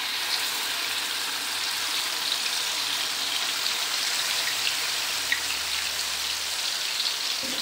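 Blended spice paste sizzling steadily in hot oil in a pan: a dense, even hiss with scattered small crackles.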